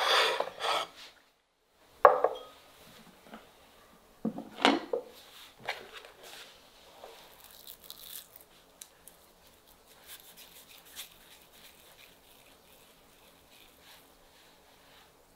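A plate knocking and scraping on a wooden board, then a sharp knock about two seconds in and a few more knocks. After that come soft, scattered sounds of hands pinching off and rolling raw minced-meat mixture in a glass bowl, with light squishing.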